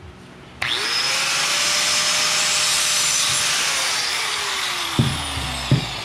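Milwaukee 4.5-inch angle grinder with a cutoff wheel starting about half a second in, spinning up to speed and grinding through the last bit of the compressor's steel shell, then slowing down with its pitch falling. Two sharp metal knocks near the end.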